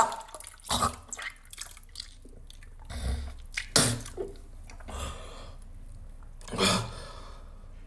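A person retching and vomiting in several separate heaves, with splashing as it hits water.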